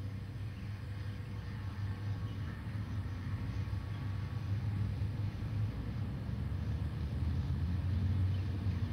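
Steady low rumble of distant city road traffic, growing slowly louder.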